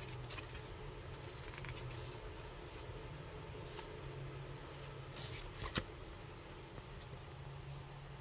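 Quiet handling sounds: a few light clicks and taps over a low steady hum, the sharpest click a little before six seconds in.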